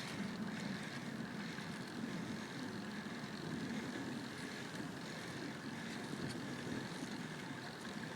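Steady wind rush over a bike-mounted camera's microphone, with tyre and road noise, while a road bicycle is ridden up a climb.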